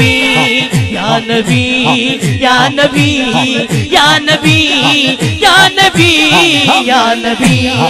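Devotional naat singing: a voice sings over a held drone and a steady beat of low drum strokes that fall in pitch, about three a second.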